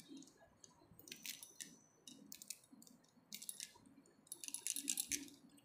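Fresh lemon leaves being torn and crushed by hand: a faint scatter of small crackles and squishes.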